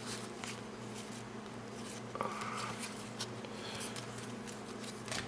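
Cardboard basketball trading cards sliding and flicking against each other as a stack is flipped through by hand, with scattered soft clicks and brief scrapes over a faint steady hum.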